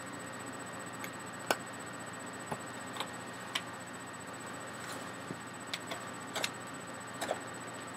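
Scattered small clicks and snaps of a stretchy latex mask being gripped, stretched and peeled up off the head, over a steady background hiss.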